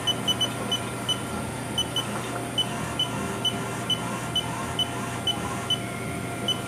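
A string of short, identical high electronic beeps, two or three a second at uneven spacing, from the Haas machining center's control as keys are pressed to adjust the programmable coolant nozzle, over the machine's steady low hum.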